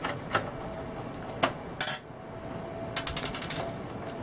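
Scattered sharp clicks and clinks of a screwdriver against the Sony micro hi-fi's casing and of its plastic panel being handled, with a quick run of rattling clicks about three seconds in.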